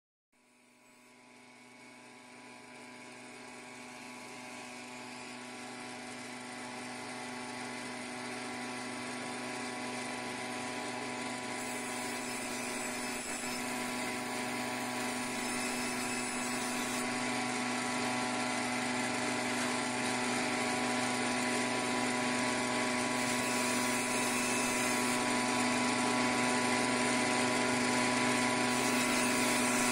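Electric meat-and-bone band saw running with a steady hum and whine while its blade cuts through a whole fish. It fades in from near silence at the start and grows steadily louder.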